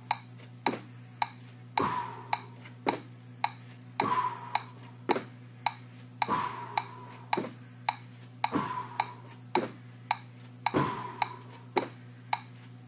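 Metronome clicking steadily, nearly two beats a second, over a low steady hum. A heavier thump about every two seconds as bare feet land hops on carpeted stairs.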